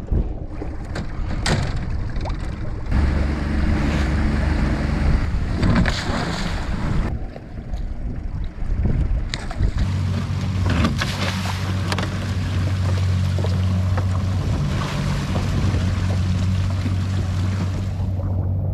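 Mercury outboard motor running steadily on a small boat, its drone growing stronger about ten seconds in, with water rushing past the hull and wind on the microphone. Scattered knocks and clatters come from a wire lobster trap being handled and pushed overboard.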